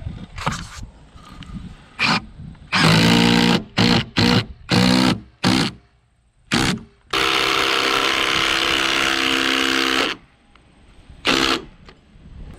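Ryobi cordless driver driving screws through a board into a log wall: several short bursts of the motor, then one long steady run of about three seconds, and a last short burst near the end.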